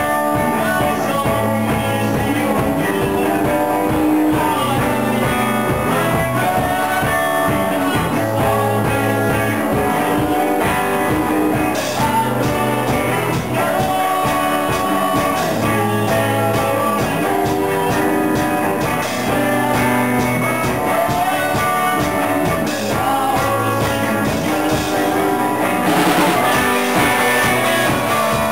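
Amateur rock band playing live in a room: electric guitars and a drum kit, with a sung lead vocal. The cymbals get busier about twelve seconds in.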